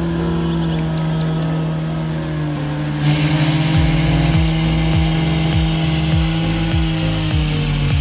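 Petrol cut-off saw running at high revs and grinding through a concrete curb stone, the cut turning harsher and grittier about three seconds in. Background music with a steady beat comes in about four seconds in.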